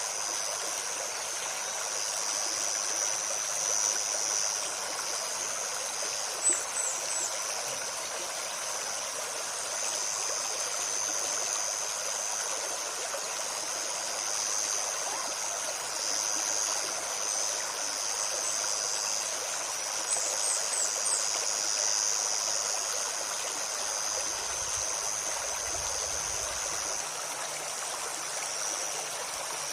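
Small forest river running over stones with a steady rushing burble. A high, even buzz sits above it, and brief high bird chirps come twice, once in the first third and again past the middle.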